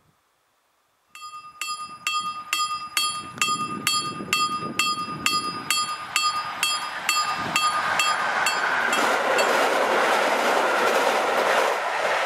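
Level-crossing warning bell (KLD-4013) starts about a second in, striking rapidly at about three strikes a second with a high, ringing tone: the crossing has been activated for an oncoming train. From about six seconds the rising noise of an approaching EN57 electric multiple unit grows loud and covers the bell.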